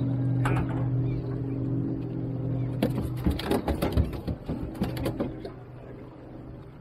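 Outboard motor on an aluminium skiff running steadily, then easing off and growing quieter about halfway through. Meanwhile a cluster of knocks and clatter sounds on the metal boat.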